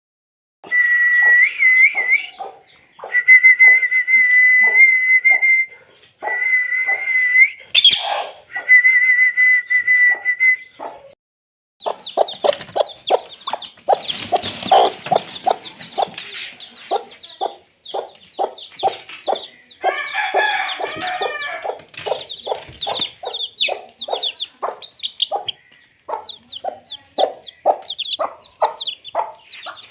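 Parrot calling: a few seconds-long held whistles in the first ten seconds or so, then a long run of short, rapid calls, several a second.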